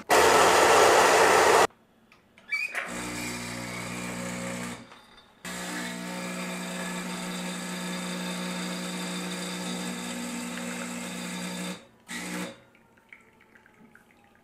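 Home espresso equipment at work: a loud hissing rush for about a second and a half, then a steady machine hum. The hum runs briefly, then again for about six seconds, and stops near the end.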